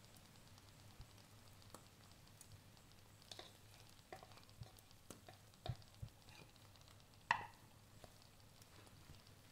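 Near silence: faint scattered ticks and pops from an omelette cooking in a nonstick frying pan, with a sharper click a little after seven seconds.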